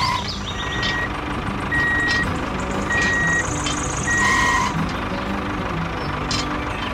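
Vehicle reversing alarm beeping, four even beeps a little over a second apart that stop about two-thirds of the way through, over a steady low engine rumble.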